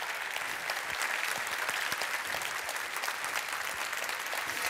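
A large audience applauding, many hands clapping together at a steady level.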